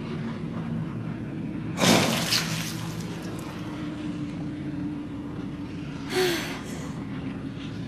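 Cartoon soundtrack effects: two sudden, loud noisy bursts about four seconds apart over a low steady drone.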